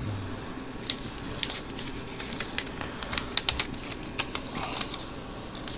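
Sheet of paper being folded and creased by hand, giving scattered crisp crackles and clicks.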